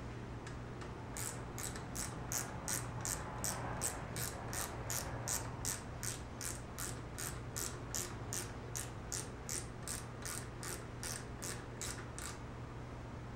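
Ratchet wrench clicking steadily, about three clicks a second for some eleven seconds, as a fastener is worked on the motorcycle's lever mount, over a low steady hum.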